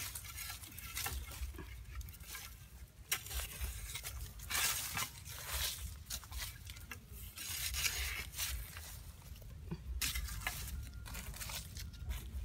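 Hands scraping and scooping dry sandy soil and dead leaves out of a small hole in the ground: irregular rustling scrapes over a low steady rumble.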